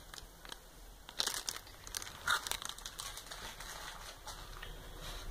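Clear plastic wrapping on cosmetic products crinkling as they are handled. The crackles come irregularly, loudest a little over a second in and again about two seconds in.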